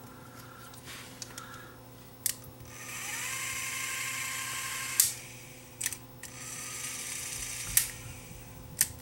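The tiny three-phase brushless drive motor of a Sony WM-10 Walkman cassette player whirring, with a rising whine as it spins up about three seconds in and runs for about two seconds, then runs again briefly. Sharp clicks of its small mechanism switches start and stop the runs: the test after cleaning dirty switch contacts that were not making good connection.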